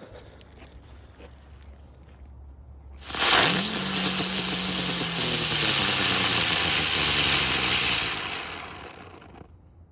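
Ground bloom firework catching about three seconds in and spinning on the ground with a loud, steady hiss. A whirring tone under the hiss rises quickly, then sinks slowly as the spin winds down. It fades out about a second before the end.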